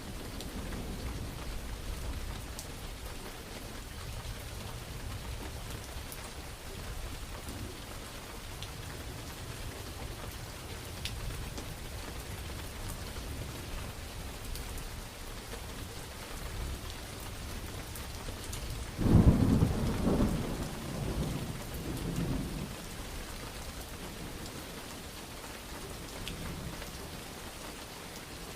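Steady rain falling over a low rumble of thunder, with a sudden loud thunderclap about two-thirds of the way through that rolls on and dies away over a few seconds.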